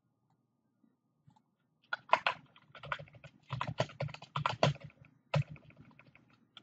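Typing on a computer keyboard: quiet for the first two seconds, then a quick run of keystrokes lasting about three seconds.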